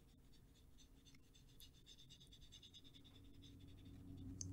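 Faint, quick scratchy strokes of a water brush pen's bristles on card, working water-activated ink across the paper.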